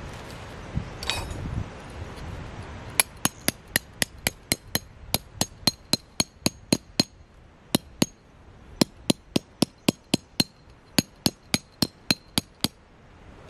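Metal-headed hammer driving a metal tent peg into gravelly ground: about thirty quick, even strikes, roughly three a second, each with a bright metallic ring, starting about three seconds in and pausing briefly midway. A single metallic clink comes about a second in.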